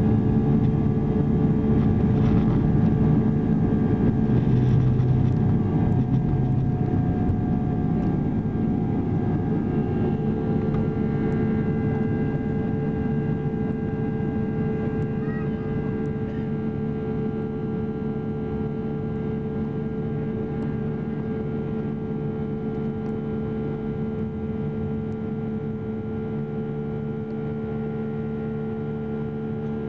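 Jet airliner cabin noise during takeoff and initial climb: the engines at takeoff thrust give a steady hum of several tones over a heavy low rumble. The rumble is strongest in the first few seconds on the runway and slowly eases as the plane climbs away.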